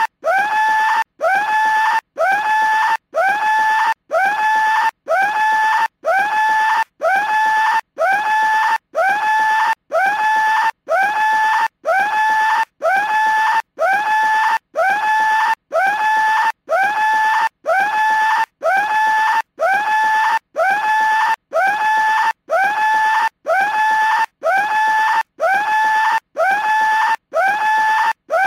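A cartoon skull-shaped telephone ringing with a scream. A short scream comes about once a second, evenly repeated, each one sliding up quickly and then holding one pitch before breaking off.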